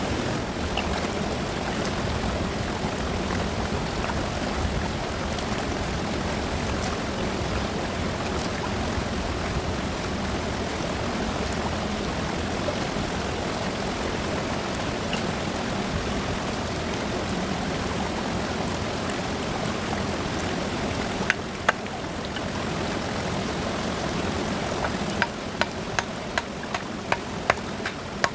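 A fast river rushing steadily. Two sharp knocks come about three quarters of the way in, then a quick run of sharp knocks near the end, about two a second.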